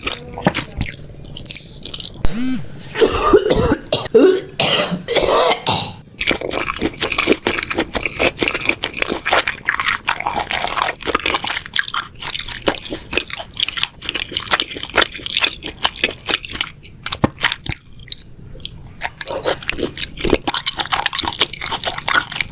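Repeated coughing and hacking, with many short, quick clicking and crunching sounds in between; the loudest, most voice-like coughs come between about two and six seconds in.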